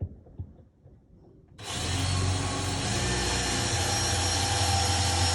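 A few light knocks, then about a second and a half in a power drill starts and runs steadily, pre-drilling a thin pilot hole at an angle through the back of a wooden cabinet stile.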